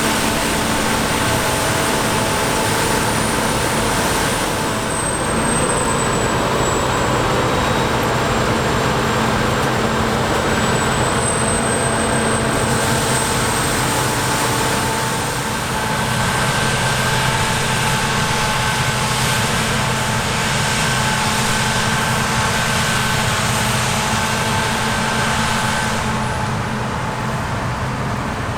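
Heavy farm harvest machinery running steadily under load: a big diesel engine hum with several high whining drive tones that shift slightly in pitch.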